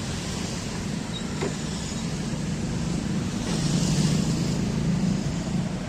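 Road traffic: a motor vehicle's engine hum over steady roadway noise, growing louder in the second half as a vehicle passes close.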